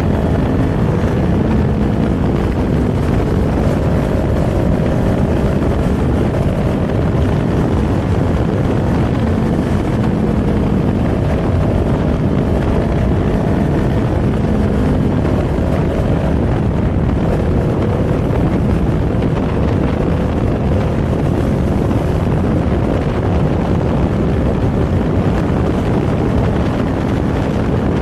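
Kawasaki Z400's 399 cc parallel-twin engine running while riding, its pitch drifting gently up and down at a steady cruise, under heavy wind noise on the microphone.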